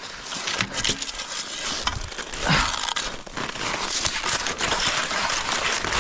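Crackling, scraping crunches of someone moving about in snow, with a couple of short grunts or breaths.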